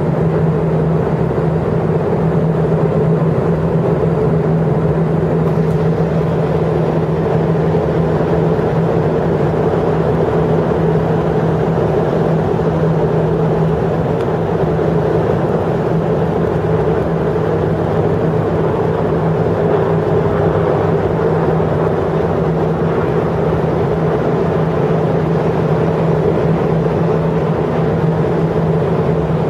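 Steady outdoor rumble of distant traffic and airport noise, with a constant low hum underneath that does not change.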